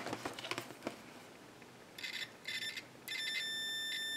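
Continuity beeper of an Amazon Commercial 90DM120 digital multimeter. After a few faint clicks come two brief chirps about two seconds in, then a steady high-pitched beep from about three seconds in. The beep signals a closed circuit across the test leads.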